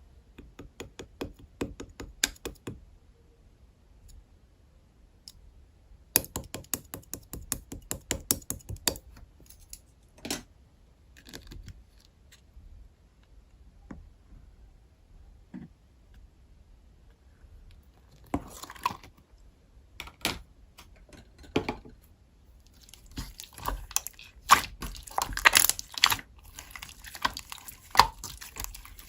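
Hands squishing and poking a soft clay slime, giving runs of quick, sticky clicks and pops with pauses between, growing denser near the end.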